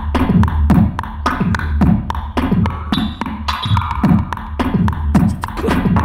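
Beatboxed beat: steady hi-hat-like ticking about four times a second, with deep falling kick sounds about twice a second over a low bass drone that comes in at the start.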